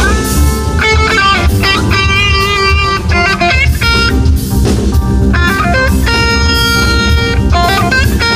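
A band playing funk-jazz live: a Stratocaster electric guitar through a Marshall amp plays a lead line of held, bending notes over bass guitar and drums.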